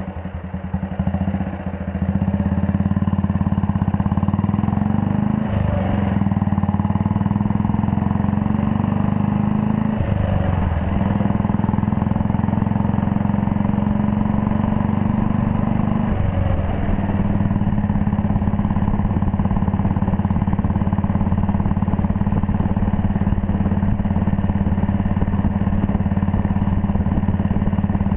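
1939 Red Panther Model 40's single-cylinder engine pulling under way on the road, getting louder about two seconds in. Its note dips briefly about 5, 10 and 16 seconds in, as at gear changes, then runs steadily.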